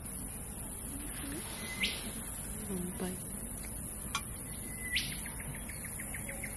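A bird calling twice, each call a short held whistle ending in a sharp upward sweep, the second followed by a quick run of short notes. About four seconds in, two enamel camp mugs clink together once.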